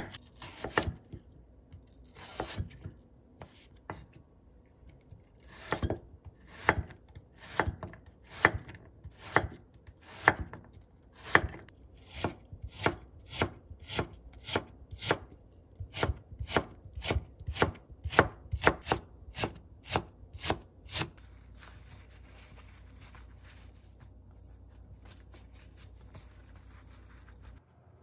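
Kitchen knife cutting Korean radish and then slicing green onion on a wooden cutting board. The knocks of the blade on the board are irregular at first, then come in a steady run of about two a second, and they stop about three quarters of the way through.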